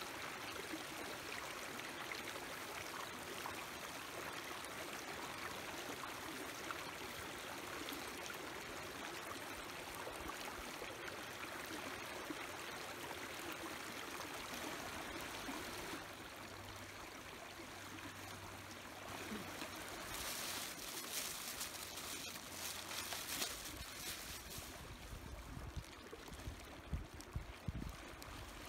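Mountain stream running steadily over rocks. From about twenty seconds in, irregular crackles and low thumps join in as the twig fire in a small folding wood stove flares up.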